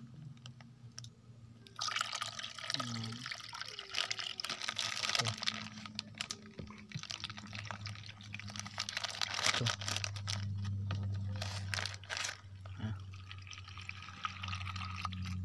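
Water pouring from a plastic pitcher into a pot packed with bananas and lined with a plastic bag, splashing and trickling over the fruit and plastic. The pour begins about two seconds in and keeps going, its strength rising and falling.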